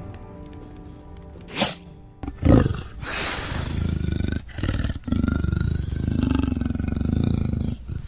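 A bow loosing an arrow with a sharp swish about one and a half seconds in, a heavy thump, then a big cat roaring loudly and without a break for the rest: a black panther hit by the arrow.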